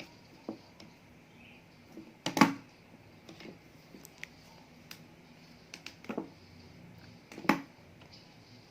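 Hands working a UTP network cable with crimping tools and scissors: scattered clicks and rustles, with two louder knocks about two and a half seconds in and again about seven and a half seconds in.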